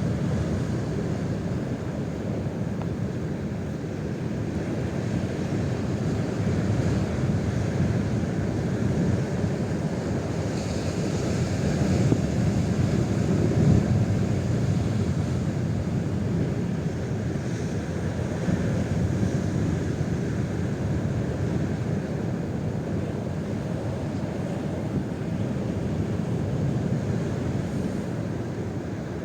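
Strong gusting wind blowing across the microphone: a low rushing noise that swells and eases, loudest about halfway through.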